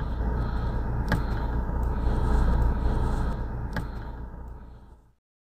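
Steady low road and engine rumble of a car driving on a highway, heard from inside the cabin, with a couple of faint clicks. It fades out and stops near the end.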